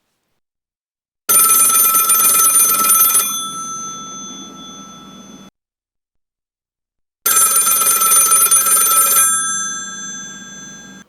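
Telephone bell ringing twice. Each ring is about two seconds long and rings out, fading, before cutting off.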